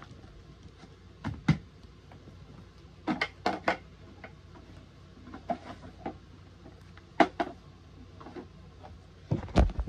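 Hard plastic clicks and knocks from a Mighty Fleet Titans toy garbage truck being handled and moved on a bed, coming in short clusters of two or three. A louder, deeper thump comes near the end.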